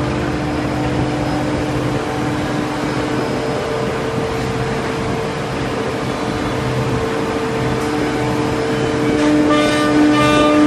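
High-speed router spindles of a two-head CNC slot-mortising machine running with a steady, high-pitched whine over general woodshop machine noise. The whine gets louder and brighter near the end.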